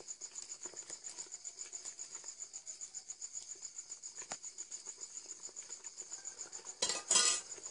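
Night insects chirping: a steady, high, pulsing chirp at about eight pulses a second. A brief loud burst of noise cuts in near the end.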